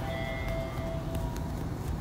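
Steady low hum and rumble inside the cabin of a Hiroden 5100-series (Green Mover Max) low-floor tram waiting at a stop before departure, with a faint steady tone that fades out a little over a second in and a few light clicks.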